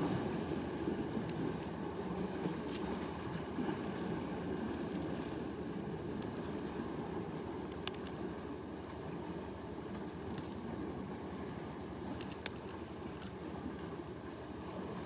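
Steel forceps clicking and scraping against goose barnacle shells while prising them off a rock, with a few sharp ticks scattered through. Under it runs a steady low rushing noise.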